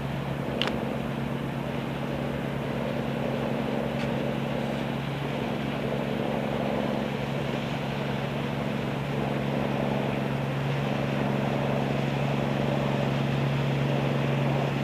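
Small motorboat passing close at speed: a steady engine drone over the hiss of its bow wave and wake.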